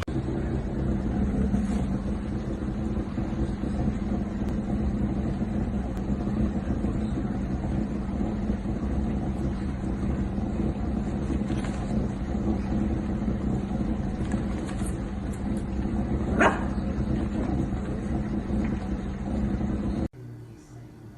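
Steady low rumble with a held hum, like a vehicle running, with one brief sharp sound about sixteen seconds in; it cuts off abruptly near the end.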